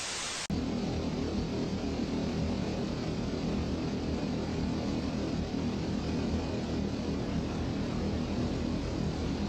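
A hiss of static that cuts off about half a second in, then a steady, dense low rumble.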